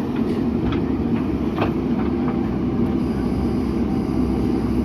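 JCB backhoe loader's diesel engine running steadily under working load, with a few short knocks over it.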